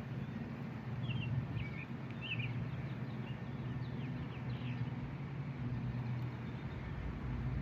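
A steady low motor hum, with a few short bird chirps about one to two and a half seconds in.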